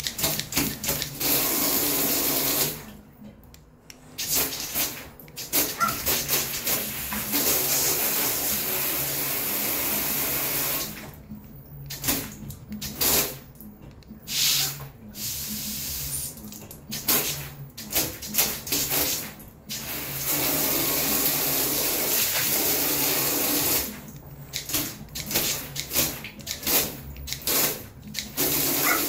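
Water gun spraying a jet of water against a glass sliding door, in long steady sprays of several seconds broken up by runs of quick short squirts.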